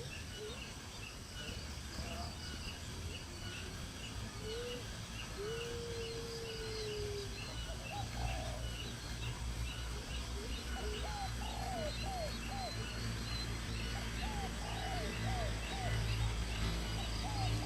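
Birds calling: a steady run of short, high repeated chirps, one long lower call about five seconds in, and, in the last third, runs of short downward-sliding calls, over a steady low hum.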